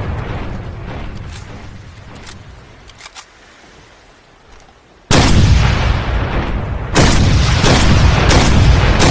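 Norinco NDM-86 semi-automatic rifle firing. The booming tail of an earlier shot dies away, and after a short quiet a loud shot comes about five seconds in, with a second about two seconds later. Each shot has a long rolling boom, and smaller sharp cracks follow in that tail.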